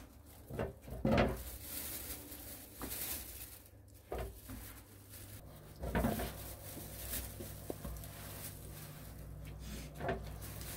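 Dough being kneaded by hand in a plastic basin: irregular soft knocks and scuffs over a low steady hum.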